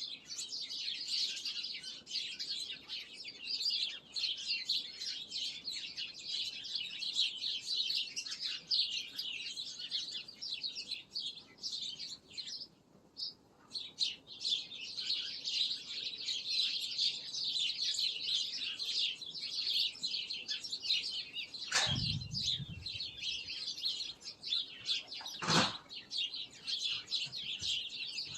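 Many small birds chirping at once in a dense, continuous chorus of quick high chirps that thins out briefly about halfway through. Two short knocks sound near the end, a few seconds apart.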